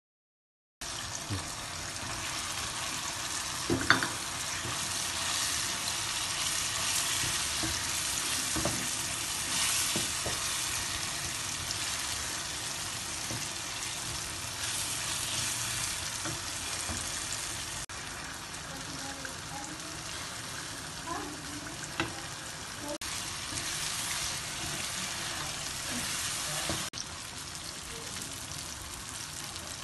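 Onions and chicken pieces sizzling in hot oil in a nonstick frying pan while a wooden spatula stirs them. The sound starts abruptly about a second in, and a few knocks of the spatula against the pan stand out, the loudest about four seconds in.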